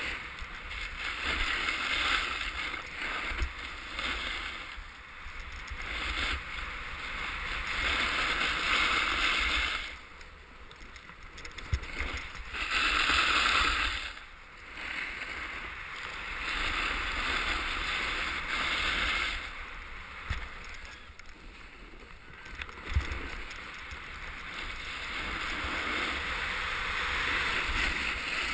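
Edges scraping and hissing over packed snow during a downhill run, swelling with each turn every few seconds and loudest about halfway through, over a steady low rumble of wind on the camera's microphone.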